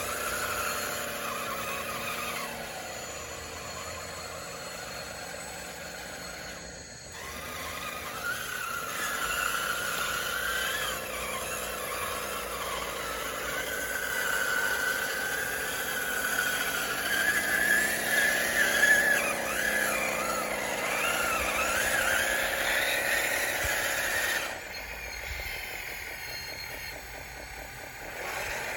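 Radio-controlled bulldozer's electric drive motors and gearboxes whining, the pitch rising and falling as it works. It is loudest midway and quieter for a few seconds near the end.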